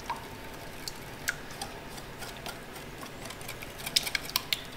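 Wire whisk beating eggs and sugar in a glass bowl, its wires clicking against the glass at irregular intervals, with a quicker run of clicks near the end.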